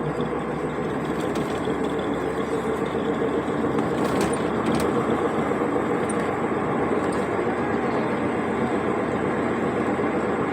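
Car driving along the road: steady engine and tyre noise.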